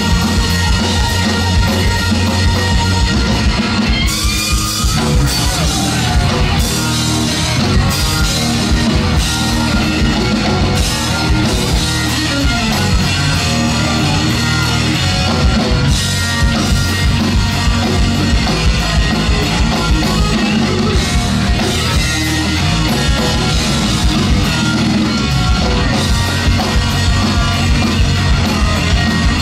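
Live rock band playing loud: an electric guitar lead with bent notes over bass guitar and a drum kit.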